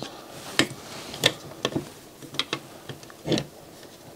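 Irregular sharp clicks and light knocks of the plastic slider and metal frame of a Schneider CDP7000 CD player mechanism being handled and shifted by hand: about half a dozen, with a slightly longer knock about three seconds in.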